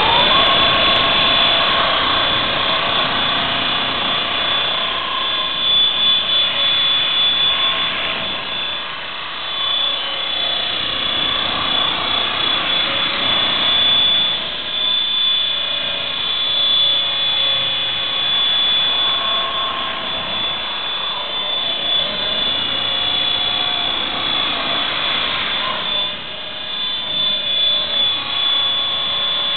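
Exceed EXI 450 electric RC helicopter flying: a steady high whine from the motor and gears over the hum of the spinning rotors, the lower tones wavering a little in pitch as it manoeuvres.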